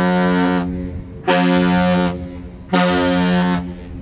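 Ship's horn sounding a salute: a long blast ending about half a second in, then two short blasts. One long and two short is the salute used to greet another vessel on the water.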